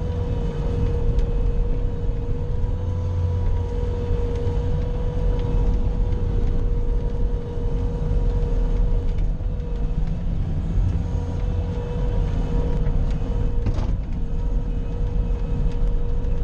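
Bobcat skid-steer loader running steadily as it works, a low engine rumble with a steady high whine over it. A brief knock comes about fourteen seconds in.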